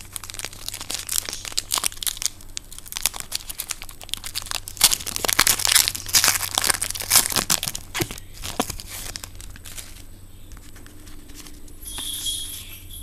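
Plastic wrapper of a trading-card pack crinkling and tearing as it is opened by hand, loudest about five to seven seconds in, then dying down.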